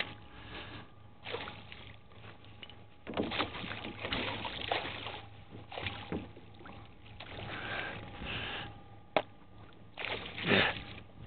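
A pike thrashing and splashing at the water's surface beside a canoe as it is netted: irregular splashes and sloshes with bumps of gear. There is one sharp knock about nine seconds in, and the biggest splashes come near the end.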